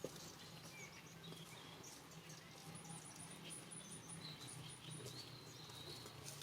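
Quiet ambience: a low steady hum with scattered light ticks, and a faint, fast, high twittering call for about two seconds in the middle, among a few thin short chirps.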